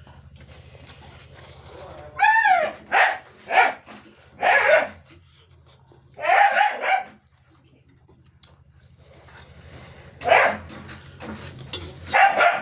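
A dog barking, about seven short barks in irregular bouts, with a steady low hum underneath.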